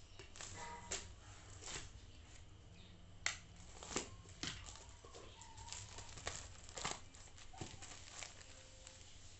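Faint unpacking sounds: a box cutter cutting at a cardboard box, with scattered sharp clicks and scrapes, the loudest a little after 3 s and at about 4 s, then a plastic bag crinkling as it is pulled out of the box.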